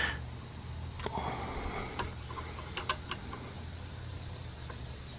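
A few light metallic clicks from a small socket wrench snugging the ignition coil's mounting bolts on a Briggs & Stratton small engine, with the feeler gauge held in the air gap. A steady low hum runs underneath.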